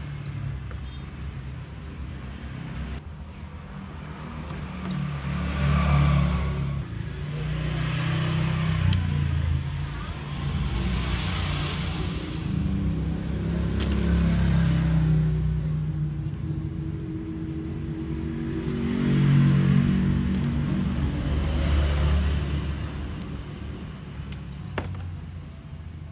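Low engine rumble of background motor traffic, swelling and fading over several seconds. A few small sharp clicks come from a phone's flex-cable connectors and frame being handled.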